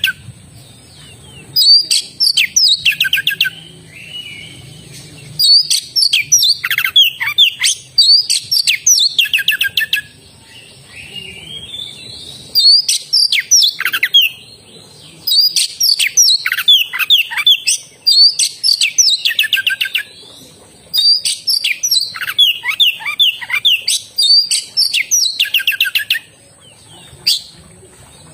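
Oriental magpie-robin (kacer) in full song: loud, repeated bursts of quick notes, many sliding down in pitch, separated by short pauses of a second or so.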